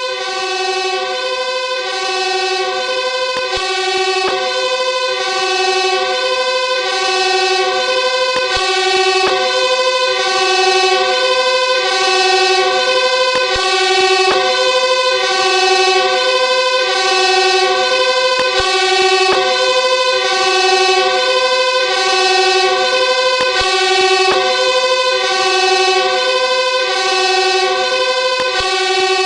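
Fire truck's two-tone siren alternating steadily between a high and a low note, each held just under a second.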